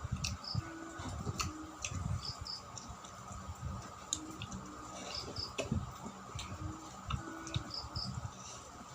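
Close chewing and soft mouth clicks of someone eating rice and ripe mango by hand. Behind it, a steady insect drone and a short double chirp repeating about every two and a half seconds.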